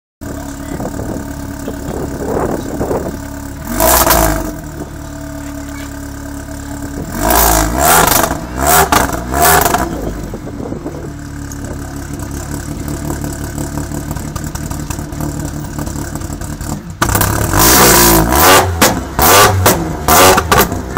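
R53 Mini Cooper S supercharged 1.6-litre four-cylinder with no catalytic converter and no mid-resonator, idling and blipped in short revs. About three-quarters of the way through it turns abruptly much louder, with the exhaust valve opened, and a rapid string of sharp revs follows.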